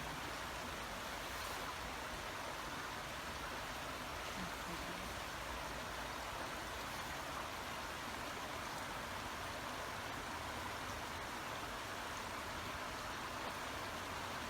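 Babbling brook: a steady, even rush of running water.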